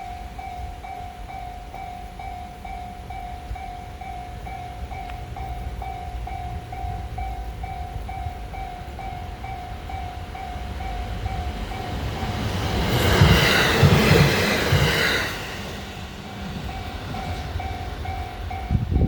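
Level crossing alarm ringing a fast, steady repeating ding while a Shinano Railway SR1 series electric train approaches with a growing rumble. The train passes the crossing about 13 seconds in, loudest for some two seconds with wheel clatter and hiss, then fades. A short knock comes near the end.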